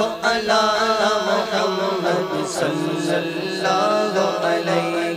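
Men's voices singing a naat: a lead voice draws out a wavering melody over a steady low drone.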